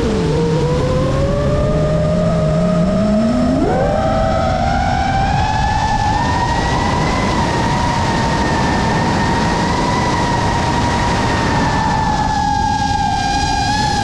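FPV quadcopter's motors and propellers whining over a steady rushing noise. The pitch falls low as the throttle is cut near the start, swoops sharply back up about three and a half seconds in, and then holds fairly level.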